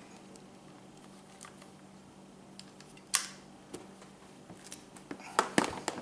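A few sharp hard clicks and knocks from a firearm chassis being handled in a hard carrying case: a single click about three seconds in, then a quick run of clicks and knocks near the end.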